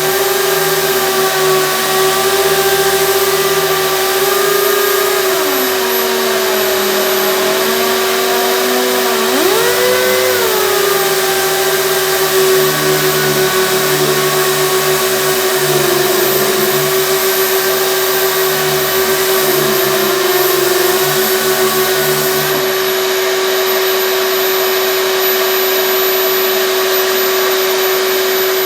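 3M 28502 air-powered random-orbital DA sander running while a shop vac pulls the sanding dust through the sander's hose, making a loud, steady motor hum with strong hiss. Between about 5 and 10 seconds in, one tone sags in pitch and then climbs back.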